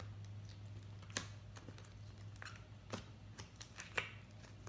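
Firm clicky slime being squeezed and pressed in the hands, giving scattered small clicks and pops, about three of them sharper than the rest, over a low steady hum.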